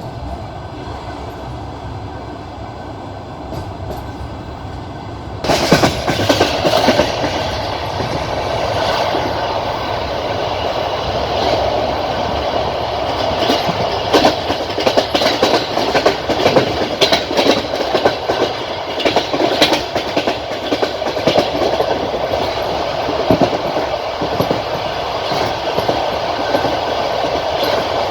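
Passenger train carriage running on the rails, wheels clacking over the rail joints with a steady rumble. About five seconds in the noise suddenly gets much louder and brighter, and the clacking stays prominent from then on.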